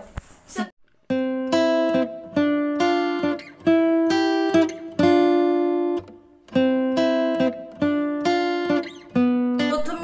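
Background music: an acoustic guitar playing a run of plucked notes, pausing briefly about a second in and again near six seconds.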